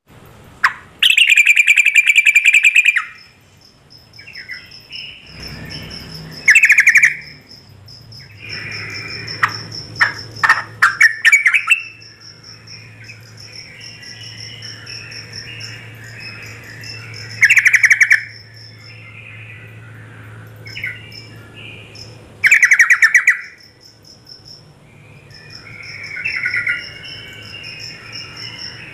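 Yellow-vented bulbul (trucuk) calling: loud, bubbly chattering phrases come every few seconds, with softer chatter between them. A thin, high, steady trill runs behind.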